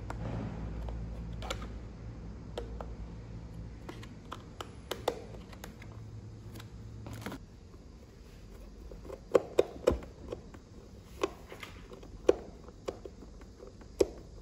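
Scattered small clicks and taps of a hex key and small screws against the drone's plastic and carbon-fibre fuselage frame while a mounting board is fastened in. The clicks come thickest and sharpest in the last five seconds. A low steady hum stops about seven seconds in.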